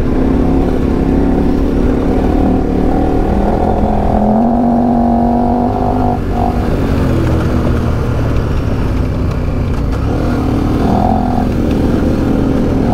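Adventure motorcycle engine running steadily on a dirt track, its pitch rising and falling several times as the throttle is worked.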